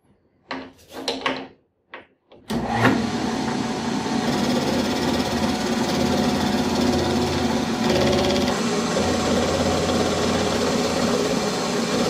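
A few short clunks, then a metal lathe switches on about two and a half seconds in and runs steadily with a low motor hum.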